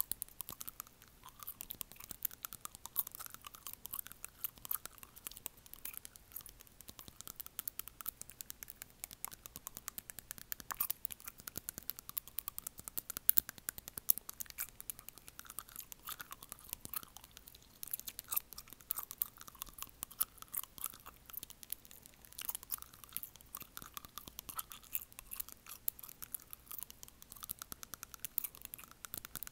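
Acrylic fingernail clicking and scraping against teeth, close to an earphone microphone, in a dense, fast run of small sharp clicks that goes on without a break.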